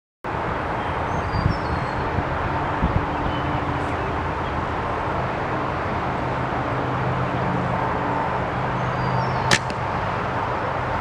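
Wind buffeting the microphone throughout, with a faint steady low hum beneath. A single sharp snap about nine and a half seconds in is an arrow being shot from a traditional bow.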